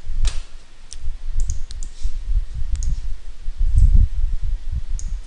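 Scattered clicks of a computer mouse, about half a dozen, over an uneven low rumble.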